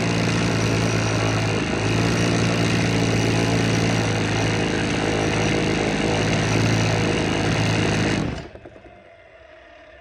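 Husqvarna 50 two-stroke chainsaw engine running steadily at a constant speed, then stopping abruptly about eight seconds in. The saw, long stored with low compression of about 80 PSI from rings stuck by years of sitting, is now running.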